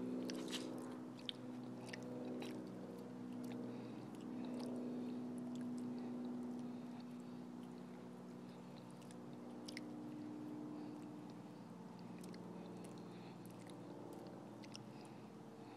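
A fox squirrel gnawing and chewing food held in its forepaws: scattered small crisp clicks and crunches, over a steady bed of sustained low tones.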